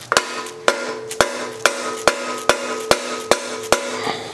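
Hammer blows on a headset cup removal tool set through a steel bicycle head tube, about nine evenly spaced strikes a little under half a second apart, the metal ringing between blows. Each strike drives the headset bearing cup out of the frame.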